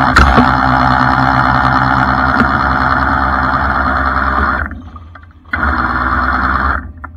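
Hydraulic winch of a rotating rollback wrecker running steadily under load as its cable drags an overturned pickup back onto its wheels, with a sharp knock just after it starts. It cuts out about four and a half seconds in, starts again under a second later and stops near the end.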